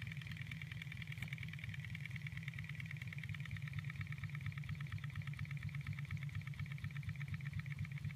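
Model Stirling hot-air engine running steadily, its mechanism giving an even, rapid rhythmic beat. A faint click about a second in.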